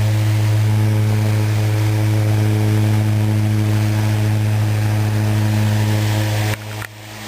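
Antique Century S-3 electric desk fan running with a steady, loud electrical hum, newly restored and running again. The sound dips sharply for a moment near the end.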